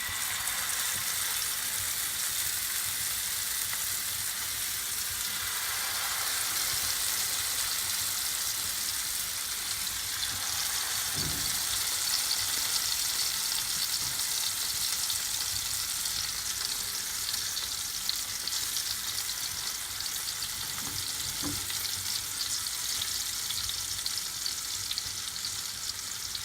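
Masala-marinated sankara (red snapper) fish pieces shallow-frying in hot oil on a tawa over a low flame: a steady sizzle, with a couple of faint knocks.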